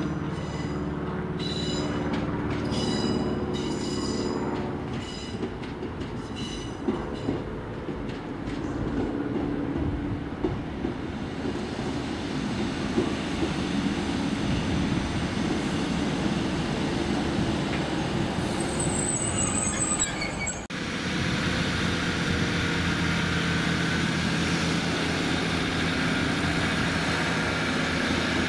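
Class 156 Sprinter diesel multiple unit on the move: its wheels squeal in a high, pulsing rhythm over the first several seconds above the hum of its underfloor Cummins diesel engines. A short high squeal comes about two-thirds of the way through, then after a sudden break the engines run on steadily.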